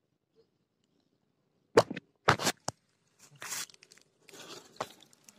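Close-up crunching and rustling of dry grass and reeds. Nearly two seconds of near silence, then three sharp crunches in quick succession, followed by softer rustling and one more click.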